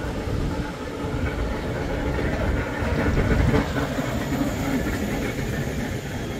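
A vehicle running, growing louder to a peak about three seconds in and then easing off.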